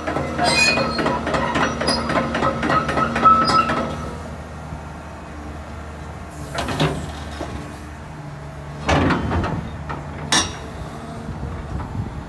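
Cat 330D2L hydraulic excavator running, its engine a steady low hum under rapid metal clanking and squeaking for the first few seconds. A few separate heavy clunks follow in the second half.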